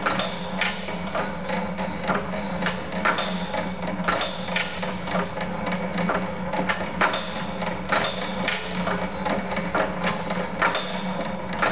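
Valve linkage and latch-out lever of an early-1900s Globe Iron Works hit-and-miss gasoline engine clacking as the engine turns over and picks up, with sharp metal clicks about twice a second over a steady hum.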